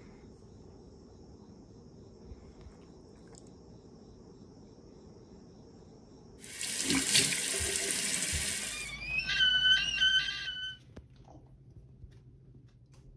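Water running from a tap for about two seconds, then a short run of high electronic beeps.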